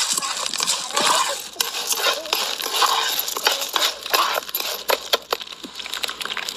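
A metal spoon stirring dried corn kernels in a steel pot, the kernels rattling and clinking against the metal in quick irregular clicks.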